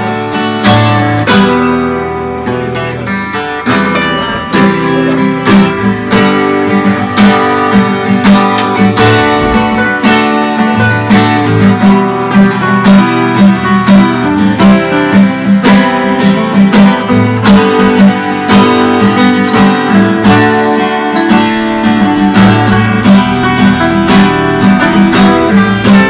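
Acoustic guitar strummed steadily, chord after chord in a regular rhythm.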